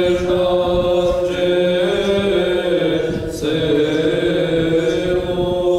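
Armenian Apostolic liturgical chant of a requiem service: voices singing long held notes over a steady low held note. The melody moves to a new note about a second in and again about three and a half seconds in.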